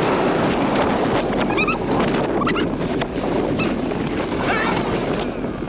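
Wind rushing over the microphone of a helmet camera on a moving motorcycle, a steady loud rush, with a few short high chirps about one and a half to three seconds in and again near the end.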